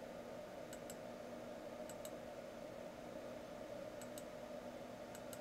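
Faint computer mouse clicks, four quick press-and-release pairs spaced about a second or two apart, over a low steady hum.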